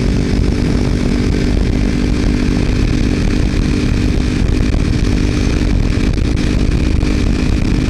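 Kawasaki Ninja 300's parallel-twin engine running at a steady engine speed through a Screaming Demon aftermarket slip-on exhaust with its baffle removed, a loud, buzzy exhaust note.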